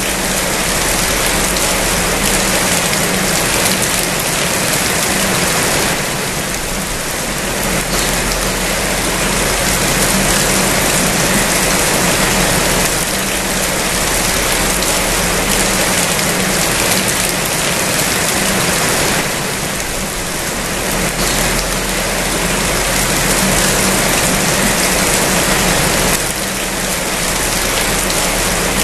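Steady rain falling, an even hiss of drops with slight swells and dips, over a low steady hum.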